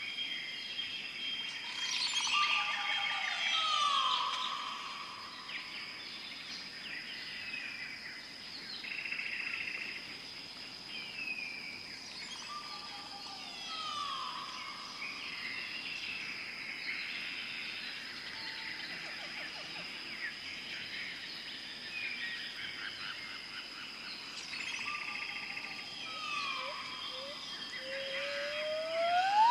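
Tropical jungle ambience: many birds chirping and calling over a steady high-pitched drone. A call made of a short level note that slides down in pitch recurs three times, about eleven seconds apart, and a rising whistle comes near the end.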